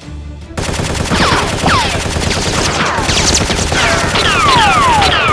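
Sustained rapid machine-gun fire, with a series of high falling whistles sweeping down over it, more and more of them toward the end. It starts about half a second in.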